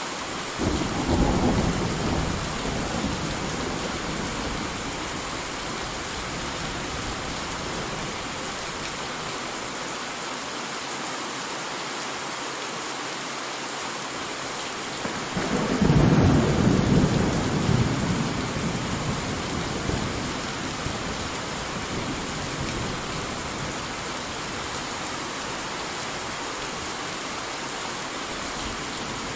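Steady rain with two rolls of thunder: one about a second in, and a louder one about halfway through that rumbles and fades away over several seconds.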